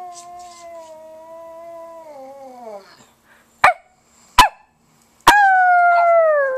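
Pug howling: one long, drawn-out howl that droops in pitch as it tails off. Two short sharp yelps follow, then a loud howl that slides steadily downward, the loudest call of the three.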